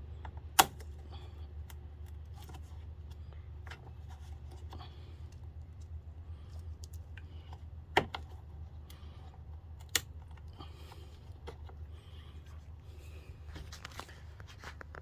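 Scattered clicks and light rattling of parts and tools being handled under the hood while hose clips and fittings are worked loose, with three sharp clacks: one about half a second in and two more about eight and ten seconds in. A steady low hum runs underneath.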